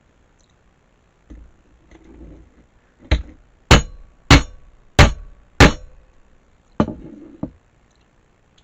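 A Jonah crab piece banged against a table to knock the crab meat out of the shell: five sharp knocks a little over half a second apart, then two lighter ones, with some handling of the shell around them.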